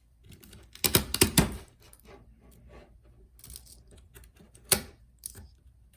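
Sharp plastic clicks and snaps as a MacBook Pro keyboard is pried out of its riveted top case and breaks apart piece by piece. There is a quick cluster of snaps about a second in, more near the middle, and one sharp crack a little later.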